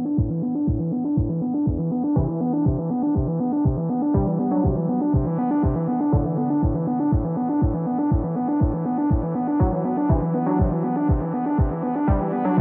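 Background music: synthesizer keys over a steady thumping beat, about two and a half beats a second.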